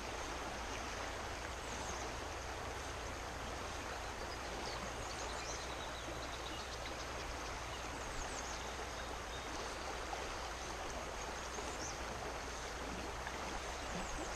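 Steady rush of a creek's current running high, with faint high chirps here and there above it.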